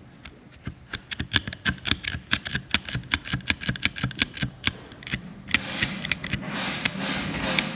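Rapid run of clicks, about four or five a second, from a VW T5 tailgate lock's soft-close latch mechanism being worked back and forth by hand to free it after sticking. A steady hiss takes over about five and a half seconds in.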